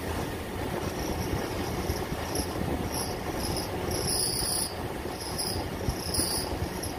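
Scania G440 truck's 13-litre straight-six diesel running at low speed as the tractor unit pulls a loaded cement tanker trailer forward at a crawl, a steady low rumble. Short high-pitched squeals come and go over it, loudest about four seconds in and again just after six seconds.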